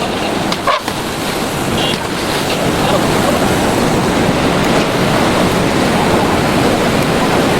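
Loud, steady rushing noise with no clear tone or rhythm.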